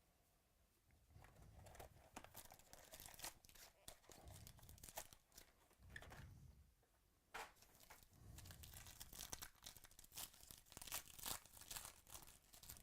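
Trading card packaging being torn open and crinkled, with faint, irregular crackling and tearing in several bursts and short pauses between them.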